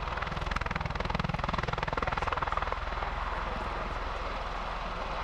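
Bell Boeing MV-22B Osprey tiltrotor setting off, its twin Rolls-Royce AE1107C turboshafts driving the big proprotors with a rapid pulsing beat like a heavy helicopter. The beat is strongest over the first few seconds, then evens out.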